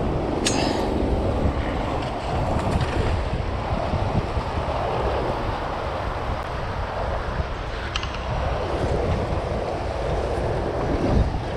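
Rushing, churning tailwater below a dam whose generators are running, mixed with wind buffeting the microphone.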